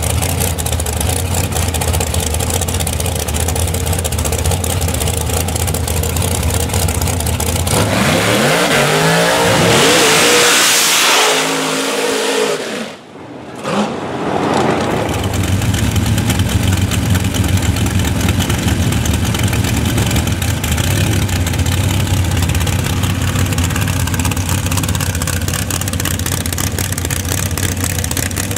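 Rail dragster's V8 engine running at a steady, lumpy idle, then revving hard up to a loud high-rpm burnout that cuts off sharply about halfway through. After that the V8 settles back into a steady idle.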